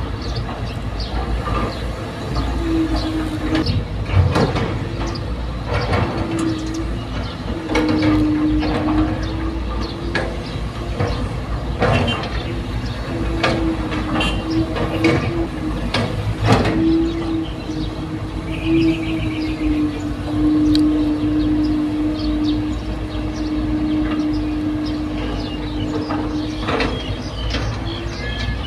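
Excavator working: the diesel engine runs steadily with a held whine that shifts slightly in pitch as the hydraulics are loaded, over irregular clanks and knocks from the bucket and rock or soil.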